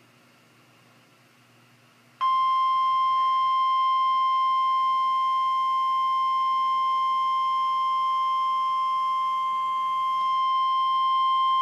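Faint radio hiss, then about two seconds in the NOAA Weather Radio 1050 Hz warning alarm tone starts: a single loud, steady beep held unbroken for the rest. It is the signal that an urgent warning follows, here a tornado warning.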